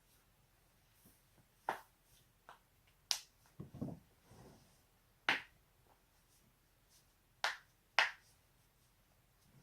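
Spinal joints of the neck and back cracking: a series of about seven sharp, short pops at uneven intervals, with a duller low sound of movement partway through.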